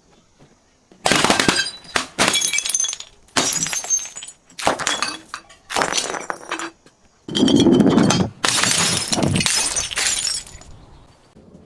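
Glass being broken and crushed: about seven crunches after a second of quiet, each starting sharply and trailing off with tinkling and grinding of shards. The longest and loudest crushing comes about two-thirds of the way in.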